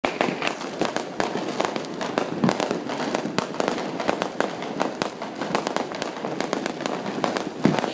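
Fireworks going off in a dense barrage: rapid sharp bangs and crackling pops, several a second without letup, with a louder, deeper bang near the end.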